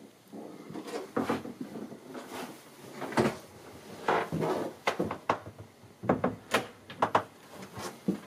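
Irregular sharp knocks and clicks, about a dozen, with rustling between them: handling noise, like fittings or cabinetry being touched.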